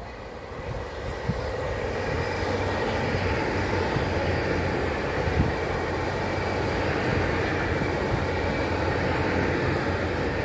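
Great Western Railway Intercity Express bi-mode train passing close by on diesel power, its underfloor engines and wheels on the rails making a steady loud noise. The noise builds over the first couple of seconds as the train comes level.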